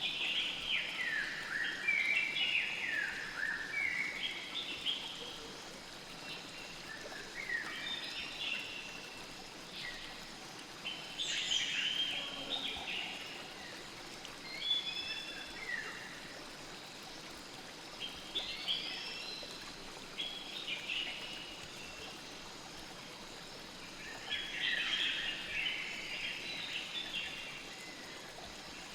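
Birds singing in bursts of quick, descending chirps and whistles every few seconds, over the steady hiss of flowing river water.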